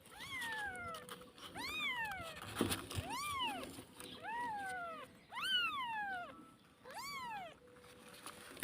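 An animal giving about six drawn-out calls, each rising and then falling in pitch, a second or so apart.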